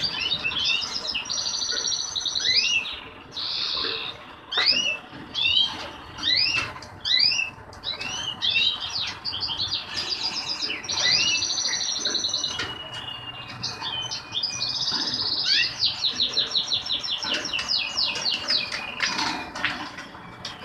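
Caged finches singing, the goldfinch × canary hybrids and goldfinches kept here. There is a string of rising whistled notes for the first several seconds, then fast trills and buzzy, rattling phrases.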